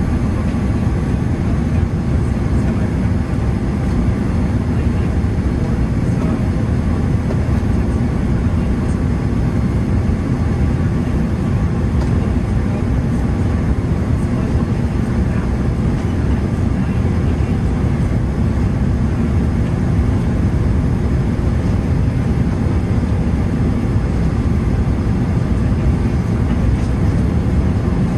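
Steady cabin noise of a Boeing 787-9 on final approach: a low, even rumble of airflow and the GEnx-1B engines, heard from inside the cabin.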